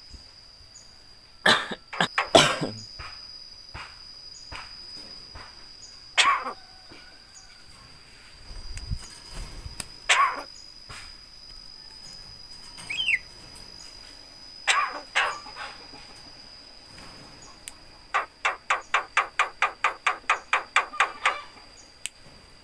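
Javan myna (jalak kebo) giving loud, harsh single calls a few seconds apart, then near the end a rapid run of about six clipped notes a second.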